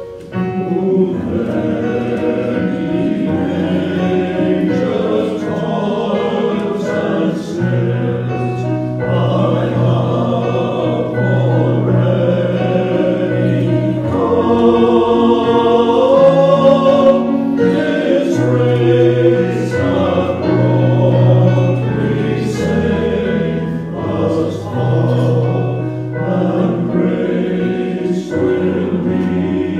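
Choir singing in concert, full chords held over a moving bass line.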